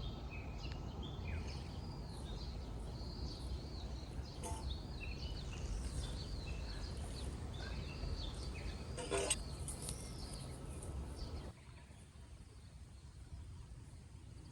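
Small birds chirping and calling in quick, short notes over a low steady outdoor rumble, with a couple of brief clicks; the sound drops much quieter near the end.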